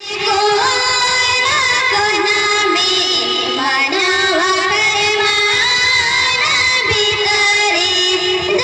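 A song: a sung melody with gliding pitch over instrumental backing, starting abruptly at the opening and holding steady.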